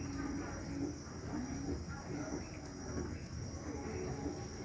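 Steady chorus of night insects, a continuous high-pitched trill that does not let up, over a low, even background of rain and storm noise.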